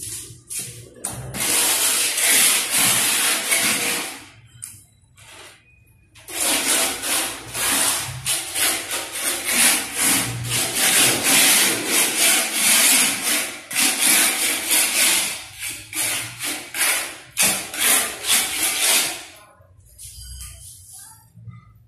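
Hand tool scraping hard across a rough surface in repeated strokes. The strokes come in two long runs with a pause of about two seconds between them. Toward the end they turn into separate strokes, about two a second.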